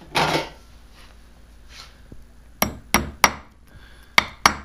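A brief handling noise, then a hammer tapping a steel roll pin into the BCS walk-behind tractor's PTO shift linkage to lock the assembly together. There are three quick sharp taps a little past halfway and two more near the end.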